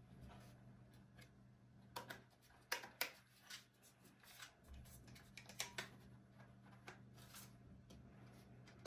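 Plastic RC transmitter being handled and turned over in the hands, giving scattered light clicks and taps of hard plastic, over a faint steady low hum.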